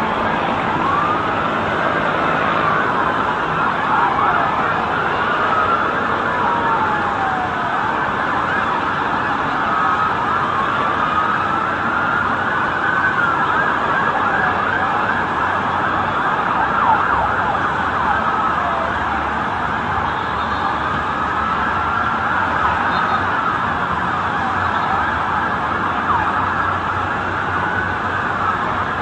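Many emergency-vehicle sirens wailing at once, their rising and falling tones overlapping steadily over a background of street noise.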